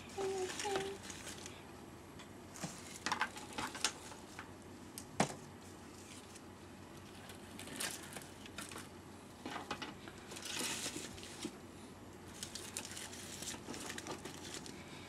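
Artificial flowers being handled and arranged: intermittent rustling and crinkling of plastic stems and leaves, with light taps and one sharp click about five seconds in. Two brief squeaks near the start.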